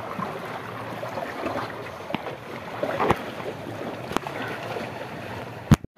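Sea water washing against a rocky shore, a steady hiss with wind on the microphone, broken by a few light knocks and clicks. A sharp click comes near the end, and then the sound cuts out for a moment.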